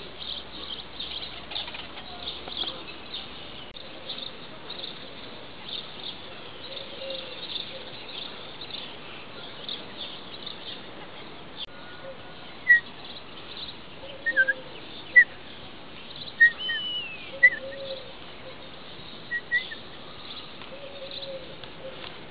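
European starling singing: a run of rapid clicks and rattles, joined from about halfway by a series of short, sharp whistles and one slurred whistle.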